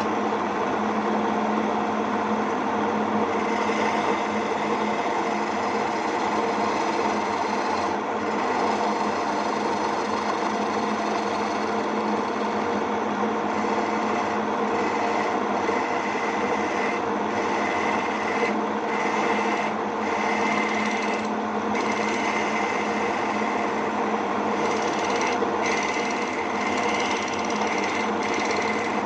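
A homemade wood lathe's electric motor running steadily with a constant hum. From about four seconds in, a cutting tool scrapes against the spinning wooden lure blank on and off.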